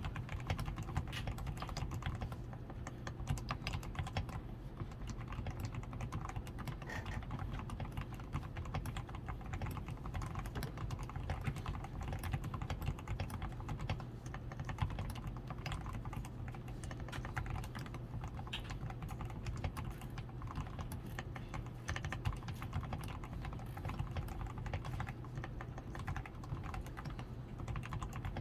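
Continuous typing on a DAREU A87 Pro mechanical keyboard modded with fully Krytox 105–lubed switches, lubed stabilizers, a tape-modded PCB, switch foam and XDA keycaps: a steady, dense stream of keystrokes.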